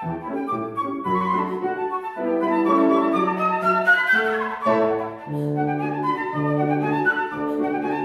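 Concert flute and Petrof grand piano playing together in a classical piece: the flute plays quick running notes, with a run that climbs about two to four seconds in, over piano chords and held bass notes.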